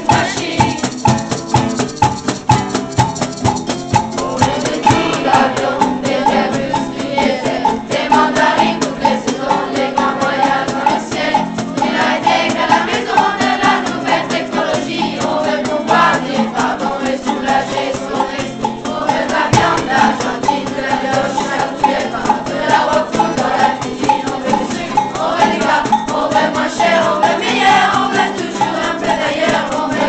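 A children's group singing together, accompanied by an acoustic guitar and maracas shaken in a steady rhythm.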